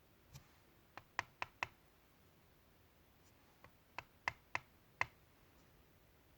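Two short runs of sharp, light clicks, four or five in each, from handling and adjusting the blades of a Wahl Magic Clip hair clipper while it is being set for blade gap and levelled.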